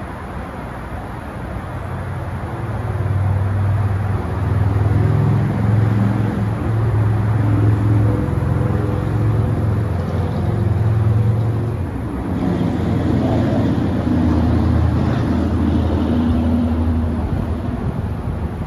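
A motor vehicle's engine running at low speed: a steady low hum that rises and falls in strength and shifts a little in pitch.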